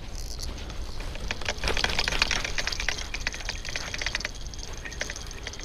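Rapid, irregular clicks and rattles from fishing gear being handled, densest about two seconds in, over a steady low rumble.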